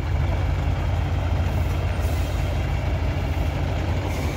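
Eicher cement mixer truck's diesel engine running steadily as the truck rolls slowly past, a low rumble that swells slightly as it nears in the first second.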